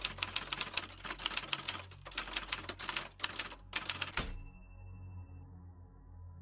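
Manual typewriter sound effect: a fast run of keystrokes, several a second, for about four seconds, then a brief ringing tone after the last stroke.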